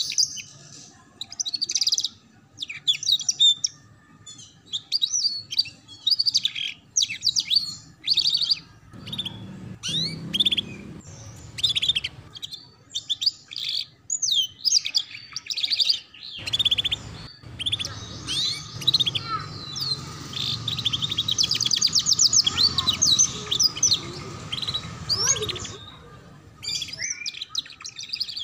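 Domestic canary singing in the busy 'ngeriwik' chattering style. It starts with short bursts of quick chirps and fast trills with brief gaps between them, then runs into one long unbroken stretch of rapid trilling lasting about eight seconds.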